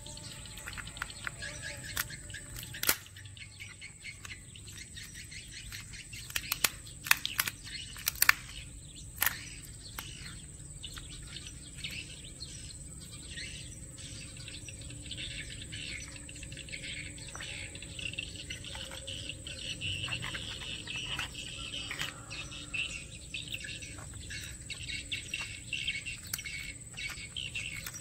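Raw crab being pulled apart by hand, its shell giving sharp cracks and clicks, most of them in a cluster about a third of the way in. Birds chirping and a steady high insect drone go on behind.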